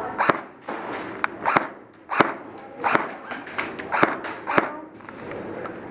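Airsoft guns firing single shots: about eight sharp cracks at irregular gaps of half a second to a second, with faint voices underneath.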